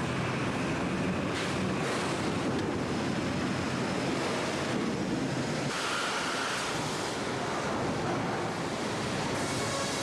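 Sawmill machinery running: a steady, broad rushing din with a low hum, changing in character a little past halfway through.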